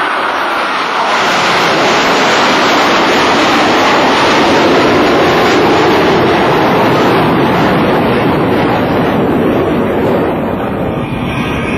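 Jet roar of US Navy Blue Angels F/A-18 Hornets flying past, swelling about a second in, holding loud for several seconds and fading near the end.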